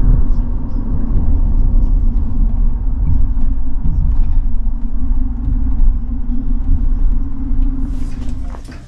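Steady low rumble of road and engine noise inside a car's cabin, fading out near the end.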